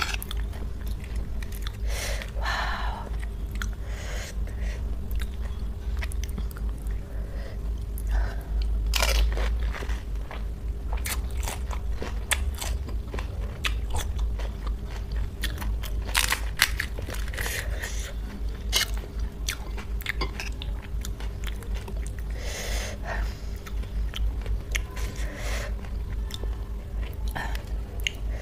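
Close-up crunching bites into crisp panipuri shells and chewing, a new crunch every second or two, over a steady low hum.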